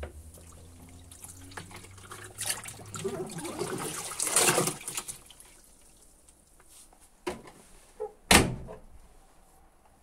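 Wet towels being moved about by hand in an Indesit washing machine's drum, with water sloshing and dripping. Three sharp knocks follow in the second half, the last the loudest.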